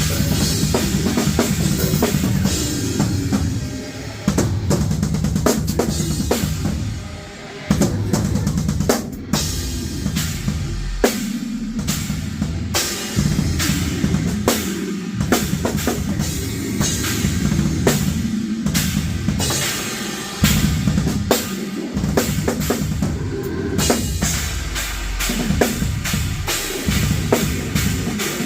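Drum kit played live in a metalcore set: dense bass drum, snare and cymbal hits, broken by several brief stops.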